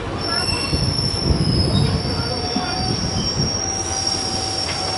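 Steel wheels of a slow-moving passenger train squealing: a steady high-pitched squeal that rises slightly, joined about halfway by a second, lower squeal, over the low rumble of the coaches.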